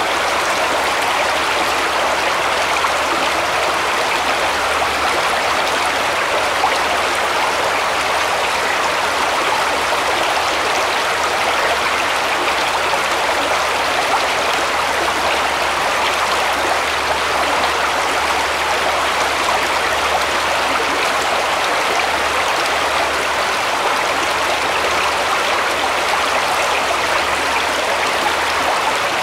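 Shallow forest brook babbling steadily as it runs over stones and small riffles.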